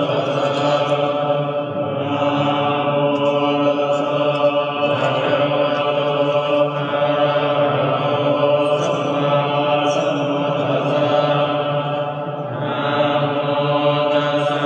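Buddhist monks chanting in unison, a group of low male voices holding a steady, almost monotone pitch, with a few short pauses for breath.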